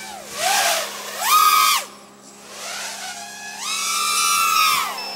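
Emax RS2205 2600kv brushless motors on a 4-inch quadcopter spinning DAL T4045 bullnose tri-blade props, whining up and down in pitch with three throttle punches: a short one, a louder one about a second in, and a longer one from about three and a half seconds.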